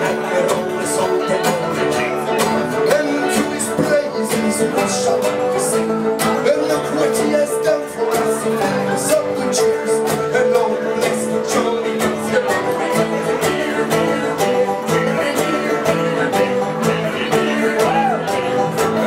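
Live Irish folk band playing: acoustic guitars strumming a steady rhythm, with a long held melody note over them.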